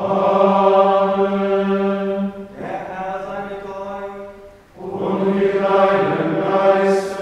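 Plainchant of the Good Friday Tenebrae office, sung on one steady reciting note. A phrase breaks off about two and a half seconds in, a quieter stretch follows, and a louder phrase starts near five seconds.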